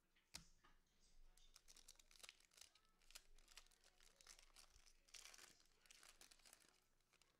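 Faint crinkling and tearing of a foil trading-card pack being torn open by hand, with scattered crackles, a sharp tick about half a second in, and a denser stretch of crinkling near the end.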